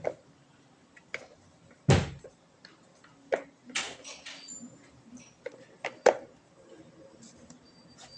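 Handling noise from bicycle parts and packaging: scattered knocks and clicks, with a deep thump about two seconds in, a brief rustle about four seconds in and a sharp click about six seconds in.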